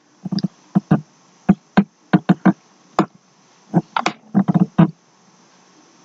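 Computer mouse clicking: about fifteen short clicks at an irregular pace, many in quick pairs, over a faint hiss.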